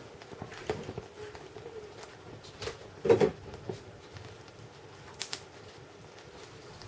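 Burning candle crackling, with scattered sharp pops a second or two apart and a louder cluster of pops about three seconds in, over a faint steady low hum.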